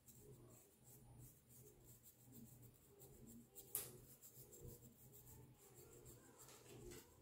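Faint, repeated scratching of a plastic comb being drawn through short, tightly curled hair against the scalp as it works dandruff flakes loose. There is one sharper click about three and a half seconds in.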